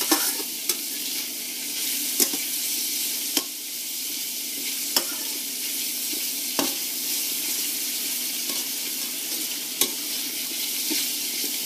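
Crayfish pieces sizzling in butter and olive oil in a stainless steel wok, with a steady hiss, while a metal spatula tosses them, clinking and scraping against the wok now and then.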